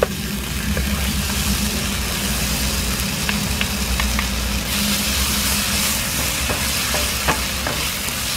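Eel pieces sizzling in a hot non-stick frying pan as they are stir-fried with a wooden spatula and a metal spoon, with scattered light clicks and scrapes of the utensils against the pan. The sizzle grows louder about halfway through.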